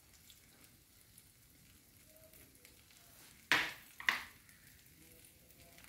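Faint sizzling of an egg omelette frying in oil in a pan, with two short, loud noises about three and a half and four seconds in.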